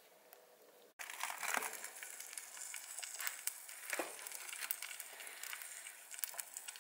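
Glowing lump charcoal crackling and popping in an open ceramic kamado grill, a quick irregular patter of small cracks with a few louder knocks.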